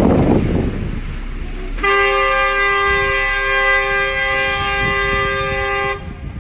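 A loud rough rumble, then about two seconds in a two-tone vehicle horn sounds, held steadily for about four seconds before cutting off.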